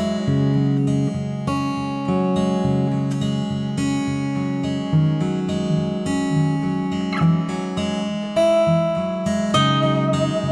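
Background music: an instrumental track of plucked notes changing on a regular beat.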